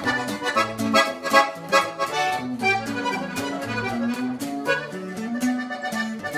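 Accordion playing a norteño tune live, over a guitar strummed in a steady rhythm.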